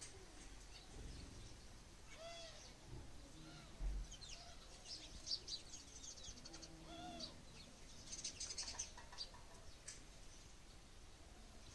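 Indian peafowl (peacock) giving two short calls, about two seconds in and again about seven seconds in, with quick high chirps of small birds between them and near the end.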